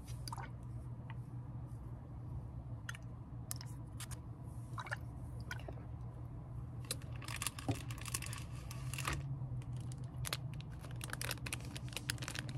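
Long fingernails tapping and scratching on a plastic skincare bottle in scattered clicks, then a plastic bag of cotton pads crinkling and crackling as it is handled in the second half.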